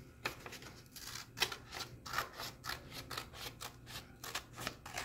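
Scissors cutting through a sheet of paper along a fold line: a series of short, crisp snips, one or two a second.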